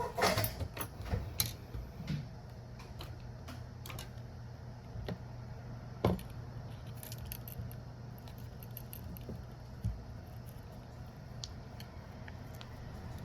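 Light clicks and taps of small tools and phone parts being handled during a smartphone battery replacement. There is a quick cluster in the first two seconds, then a few single clicks, over a steady low hum.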